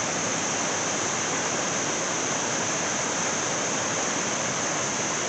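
Waterfall running steadily: an even rush of falling water with no change in level.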